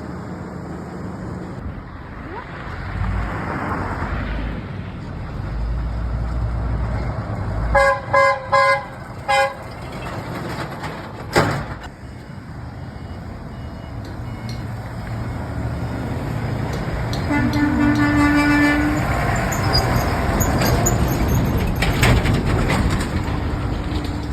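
A vehicle horn honks four short times in quick succession, a longer and lower horn note sounds later, and a sharp knock comes in between. Traffic noise swells as vehicles pass.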